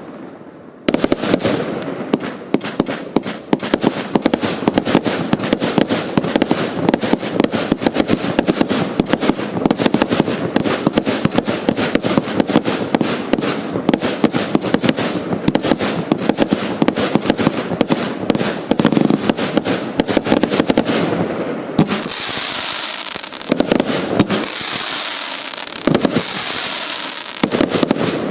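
Hallmark 'Game On' compound firework cake firing: a rapid, unbroken stream of cracks and shots for about twenty seconds. Then it changes to a few surges of hissing crackle with scattered bangs.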